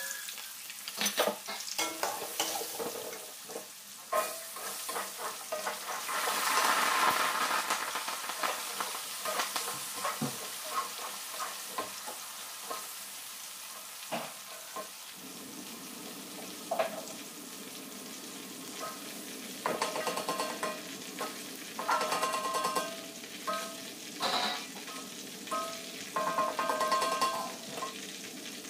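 Chopped shallots and garlic sizzling in hot oil in a black iron wok. The steady sizzle is broken by the clicks and scrapes of a metal spatula stirring against the pan, with a run of short scraping strokes near the end.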